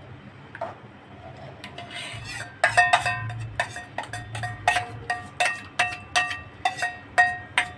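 A metal spoon knocking and scraping against the rim of a stainless steel bowl, a rapid series of sharp ringing clinks starting about two and a half seconds in, as the last of the paste is knocked out of the bowl.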